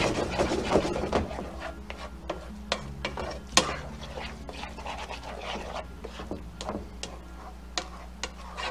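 A spoon stirring thick, sticky risotto with melting Parmesan in a metal frying pan: wet squelching of the rice with irregular scrapes and clicks of the spoon against the pan.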